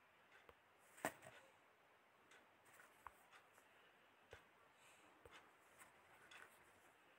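Near silence: faint room tone with a few scattered soft clicks, the loudest about a second in.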